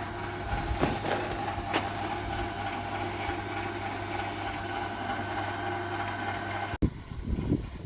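A small engine or motor running steadily, with a couple of sharp knocks in the first two seconds. The hum cuts off abruptly about seven seconds in, and uneven low noises follow.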